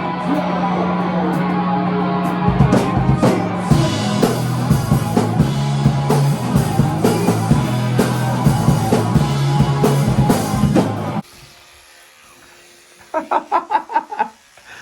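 Rock band playing: electric guitar and bass, with a drum kit coming in about two and a half seconds in. The music cuts off suddenly a few seconds before the end, leaving a quiet room and a brief burst of a person's voice.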